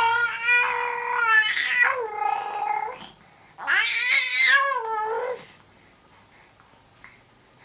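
A 5-month-old baby's high-pitched squealing vocalizations that sound like a cat meowing: one long drawn-out squeal, then a second shorter one a little after the halfway point.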